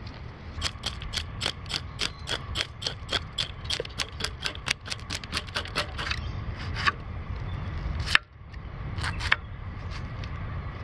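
Knife scaling a fish on a wooden cutting board: a quick run of short, crisp scraping strokes, about four or five a second, then a sharp click about eight seconds in and a few more strokes.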